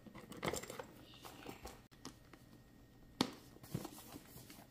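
Faint rustling and handling of a Louis Vuitton Kirigami pochette as items are pushed inside. About three seconds in there is one sharp click, with a smaller one just after, as the flap is closed over its snap stud.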